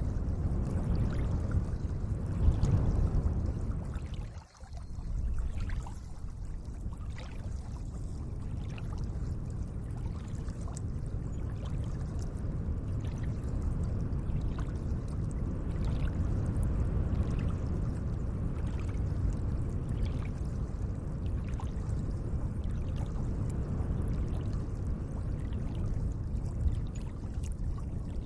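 Gentle moving water making a steady low wash, with faint short ticks and splashes through it. The sound briefly drops away at about four and a half seconds, then returns.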